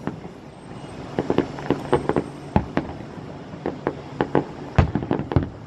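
Fireworks going off: an irregular series of sharp bangs and crackles, some close together, with the loudest bang near the end.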